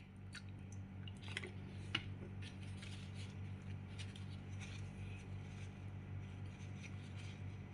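Light handling noises: a few small clicks in the first two seconds, then soft scratchy rustling as a glass pH electrode is wiped dry with a tissue, over a steady low hum.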